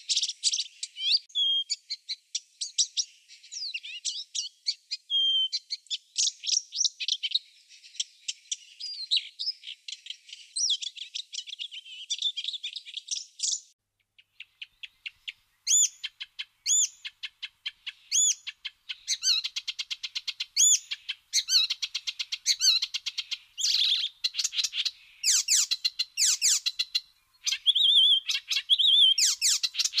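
A Blyth's reed warbler singing a fast, varied stream of high notes. The song stops about 13 seconds in, and after a short pause an icterine warbler sings a loud, varied song of repeated notes and rapid trills.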